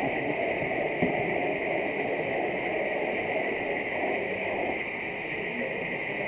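Steady background noise of a busy exhibition hall, an even hiss with a low, muddled rumble beneath it, and a single short knock about a second in.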